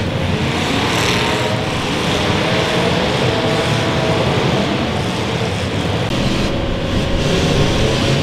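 Several demolition derby cars' engines running and revving at once, in a steady loud din.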